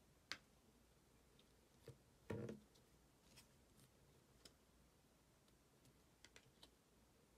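Faint clicks and soft slaps of Panini Threads basketball trading cards being flipped through and set down on a pile. The loudest is a short rustle about two and a half seconds in, with a few light ticks after it.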